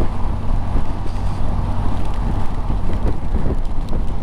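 Motorcycle ridden at a steady road speed in the rain: a steady rush of wind and road noise over a low, even engine hum.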